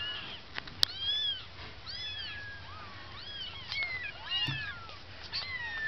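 Two-week-old kittens mewing: a string of high, thin mews, about one a second, some overlapping. A single sharp click comes just before one second in.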